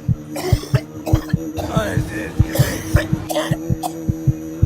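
A person coughing over and over, harsh fits in quick succession, as after a hit from a vape. Background music with a held low note runs underneath.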